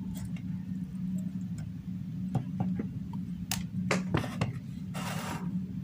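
Scattered light clicks and taps of hands handling a plastic LED lamp fitting and an analog multimeter on a wooden table, with a short scrape about five seconds in as the meter is slid into place. A steady low hum runs underneath.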